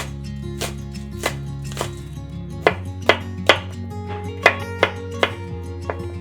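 A knife chopping on a cutting board in quick, uneven strokes, about two a second, over background music with sustained chords.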